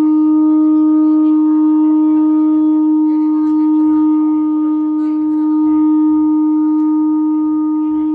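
A traditional Naga horn blown as one long, steady, loud note, held without a break in pitch, as in a horn-blowing contest where the note is sustained as long as possible.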